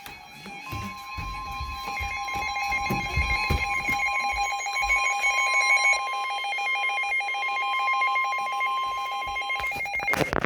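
Emergency Alert System attention signal: a steady two-tone alert held for about nine seconds that cuts off shortly before the end. A few low knocks come in the first few seconds.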